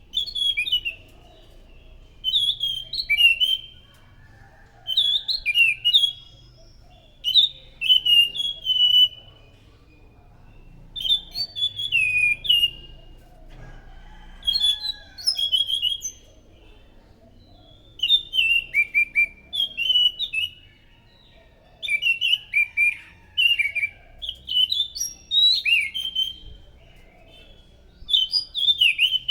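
Anis macan thrush singing: short phrases of clear, sharply falling whistled notes, repeated about every two seconds.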